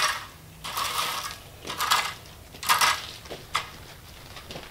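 A rake dragging through loose gravel in repeated strokes, a crunchy scrape roughly every second, about five in all, dying away near the end.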